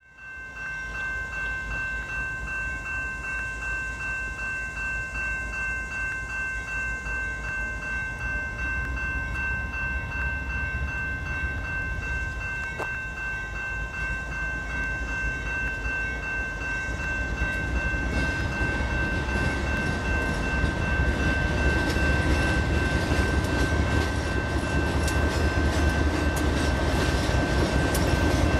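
BNSF freight train led by GE C44-9W diesel locomotive #5103 approaching. Its engine rumble and wheel noise grow louder from about 18 seconds in as the locomotives draw alongside, with clattering toward the end. A steady high ringing with a fast regular pulse sounds throughout.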